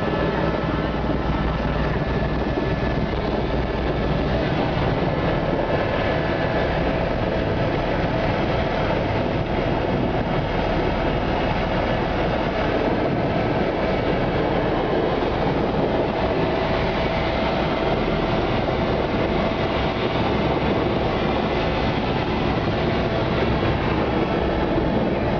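Helicopter engine and rotor noise heard from inside the cabin: a loud, steady mechanical drone with a low pulsing beneath it.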